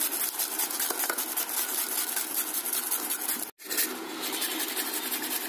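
Carrot and then beetroot being grated by hand on a flat metal grater over a stainless steel bowl: rapid rasping scrapes, broken off for an instant about three and a half seconds in.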